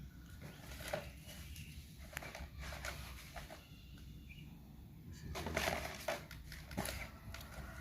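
Handling noise of a fishing reel: scattered light clicks and rustling, with a louder rustle about five seconds in.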